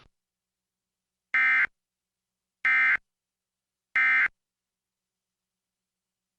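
Emergency Alert System End Of Message signal: three short bursts of warbling digital SAME data tones, about a second apart, marking the close of the severe thunderstorm warning broadcast.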